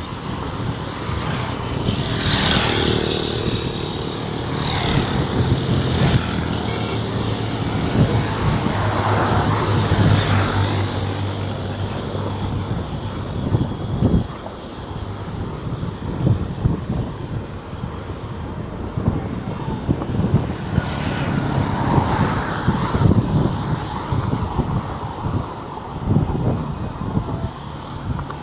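Highway traffic: vehicles passing one after another, each swelling and fading, with a steady low engine drone for the first third or so.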